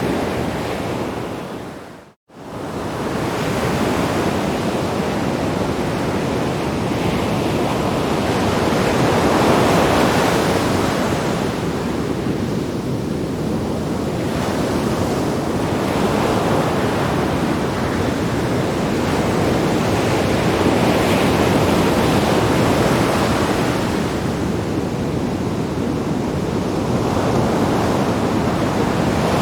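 Sea waves breaking and washing against rocks, a continuous surging rush that swells and eases every several seconds. The sound dips away to nothing for a moment about two seconds in.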